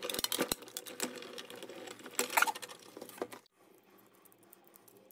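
Hand-cranked die-cutting machine being turned, pressing a Sizzix feather die and card through its rollers with a dense clicking rattle. It stops about three and a half seconds in.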